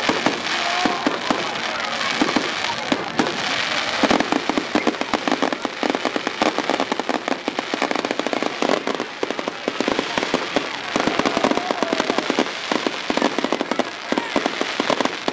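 Fireworks display: aerial fireworks popping and crackling, the crackle turning dense and rapid about four seconds in and running on as a long rattling barrage.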